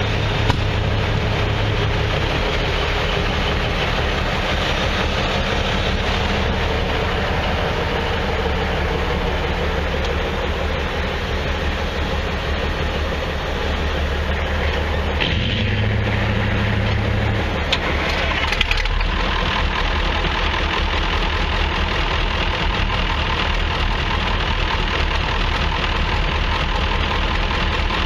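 Large diesel engine idling steadily, its tone changing abruptly about 15 seconds in and again about 19 seconds in.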